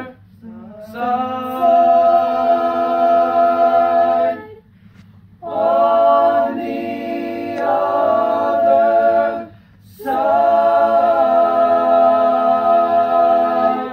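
Young men's vocal ensemble singing a cappella in close harmony: three phrases, each ending on a long held chord, with brief breaths between. The final chord cuts off near the end, closing the song.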